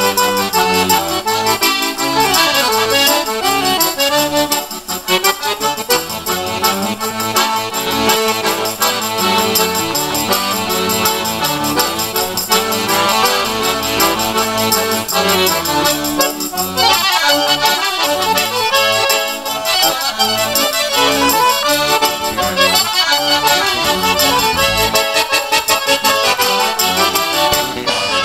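Accordions playing a lively instrumental gaúcho folk dance tune, backed by a steady percussion beat.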